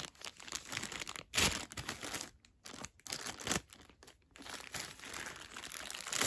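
Clear plastic packaging bag crinkling and rustling as it is handled, in irregular bursts, loudest about a second and a half in.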